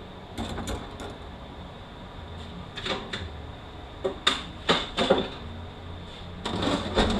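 Metal automatic-transmission parts being handled during teardown: a scattering of short clinks and knocks as parts are set down and the case is worked on, with a busier cluster near the end.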